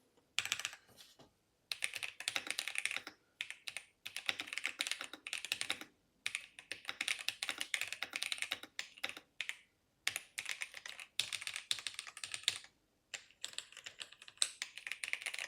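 Typing on a mechanical keyboard: about seven runs of rapid keystrokes, each lasting one to three seconds, with short pauses between them.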